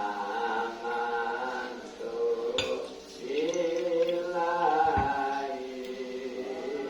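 Chanting or singing voices in long, held notes that slide between pitches, with a couple of short clicks about two and a half and five seconds in.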